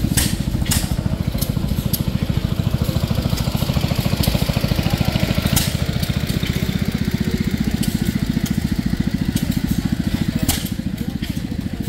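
A small engine running steadily with a fast, even chug. Scattered sharp clicks sound over it, and it gets a little quieter about ten and a half seconds in.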